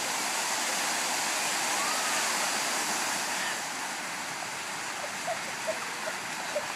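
Many jets of a park fountain splashing down into the basin: a steady rush of falling water, a little louder for the first three and a half seconds, then slightly quieter.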